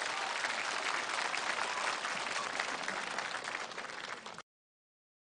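Studio audience applauding, a dense crackle of many hands clapping that eases slightly, then cuts off suddenly about four seconds in.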